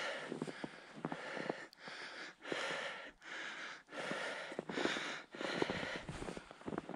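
A man panting hard in quick, regular breaths, out of breath from climbing a steep slope. His footsteps crunch in the snow between the breaths.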